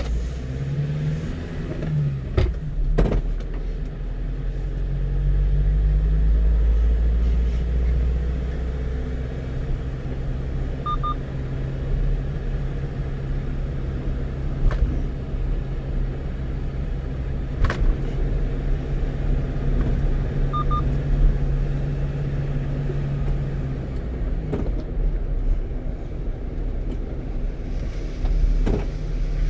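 A 1-ton truck's engine and road noise as it pulls away and drives on. The engine pitch rises in the first few seconds, then runs steadily. Faint short double beeps come about every ten seconds.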